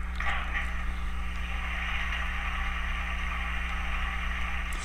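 Digital sound decoder's water-stop effect from a model steam locomotive's speaker. A short sound of the tender's water hatch opening comes near the start, then a steady rush of water pouring into the tender, over a low steady hum.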